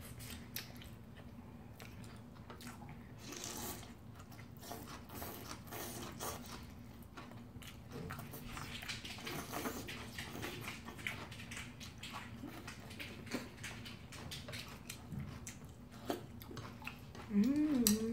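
Close-miked eating: udon noodles slurped and chewed, with small clicks of chopsticks and a spoon in the bowl. A brief voiced sound comes near the end.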